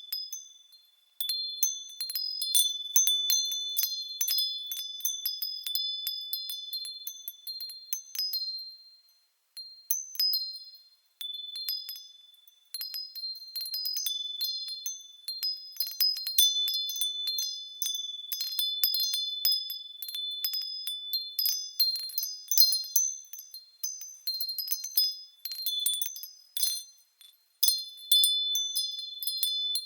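Japanese glass wind chimes (fūrin) tinkling in the breeze: irregular clusters of high, clear ringing strikes, with brief lulls when the wind drops, about a second in, around ten seconds in, and near the end.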